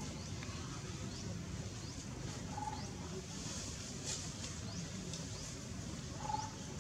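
Outdoor ambience under a low rumble: short rising chirps every second or so and a brief whistled call, heard twice, a few seconds apart.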